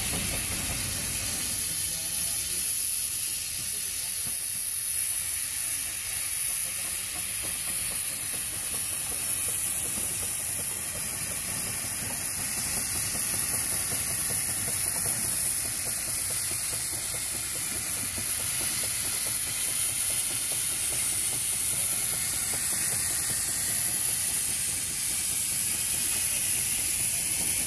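Russell steam traction engine letting off steam in a steady, high hiss.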